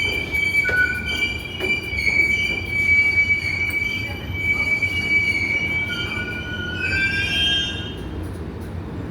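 R188 subway train's steel wheels squealing against the rails: a steady high squeal over the low rumble of the train, which shifts higher and stops about eight seconds in.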